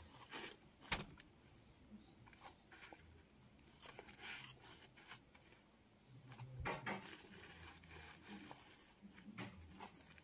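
Faint rubbing and rustling of a dry wipe cloth being worked over an iPhone's bare glass screen, with a sharp click about a second in.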